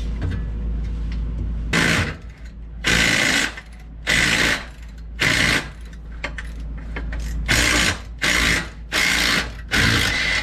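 Power wrench run in eight short bursts, loosening the exhaust's spring-clamp bolts, over a steady low hum.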